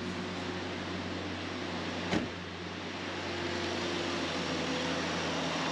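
Ford Ranger's Mazda-built 2.3 L inline-four engine idling steadily, just started after a coolant refill. A truck door shuts with a thump about two seconds in.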